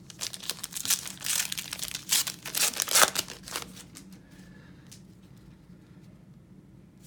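Foil wrapper of a baseball card pack being torn open and crinkled: a burst of crackling lasting about three and a half seconds, loudest a little past the middle, then quiet.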